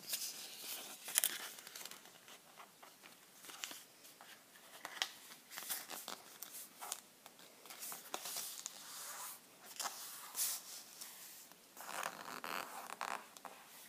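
Origami paper rustling and crinkling in short, scattered bursts as it is folded and creased by hand, with a longer stretch of rustling near the end.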